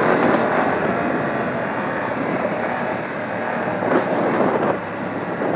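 BMW F 850 GS Adventure's parallel-twin engine running steadily as the bike rides over bumpy dirt, with a couple of harder jolts about four seconds in.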